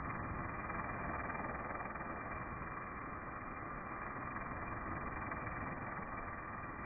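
Pressure washer running steadily: a continuous spray of water with the hum of its motor, unchanging throughout.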